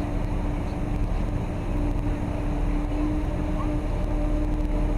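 Sightseeing water bus's engine running steadily: a continuous low rumble with a constant mid-pitched hum over it.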